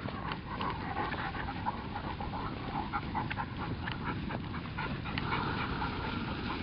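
A dog panting steadily at close range, with scattered rustles and light ticks from movement through the grass.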